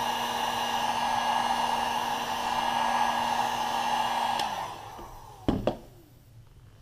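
1500-watt heat gun blowing steadily with a hum, heating the clear sole-protector film so it works itself down onto the sole; it is switched off about four and a half seconds in and its fan winds down with a falling tone. Two sharp knocks follow about a second later.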